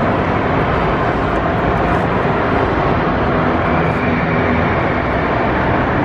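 Slime Streak roller coaster train climbing its lift hill, with a steady mechanical rattle and rumble that does not let up.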